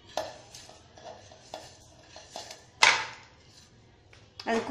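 Light clinks of a china plate and spoon against a steel mixer-grinder jar as spices are tipped in for grinding, with one sharper clank about three seconds in.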